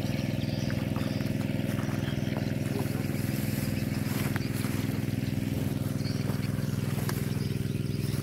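An engine running steadily at one constant speed, a continuous low hum with no change in pitch.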